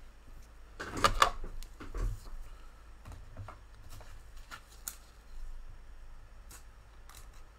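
Gloved hands handling trading cards and clear plastic card holders on a tabletop: a cluster of clicks and rustles about a second in, a knock a second later, then scattered light taps and clicks.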